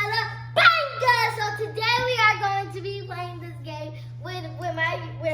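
A child singing in a high voice, the pitch sliding between held notes, over a steady low hum.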